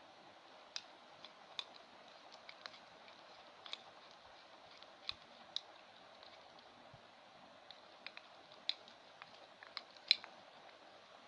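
Faint, irregular clicks of a spoon tapping and scraping against a container as slime is stirred, with the loudest click near the end.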